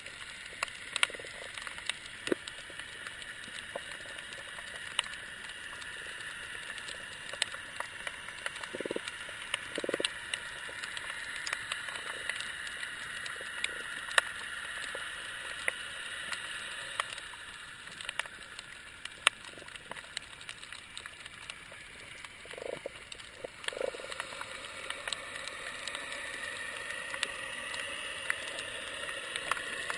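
Underwater ambience picked up by a submerged camera: a steady hiss with many scattered sharp clicks and crackles, and a few short, muffled low thuds.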